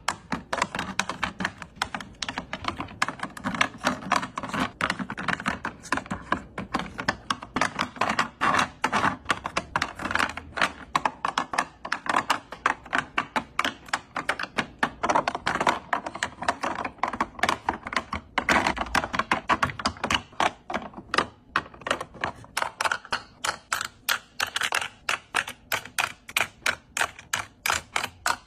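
Plastic lip-gloss tubes, lip products and small sample vials clicking and clacking against clear acrylic organizer bins as they are set in place one after another. Sharp, close clicks come several a second without a break.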